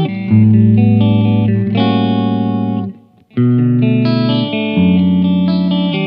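Aguda Black Hole Custom headless electric guitar with Tesla Plasma Custom humbuckers, played on a clean tone: ringing chords, each held for about a second. The playing stops briefly about three seconds in, then resumes.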